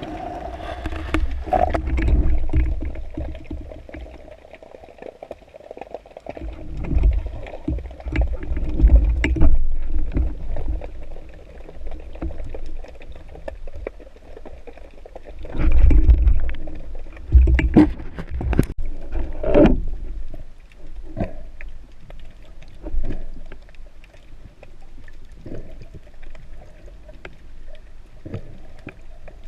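Underwater sound picked up by a camera in a waterproof housing: water rumbling and surging against the housing in uneven waves, with scattered clicks and knocks.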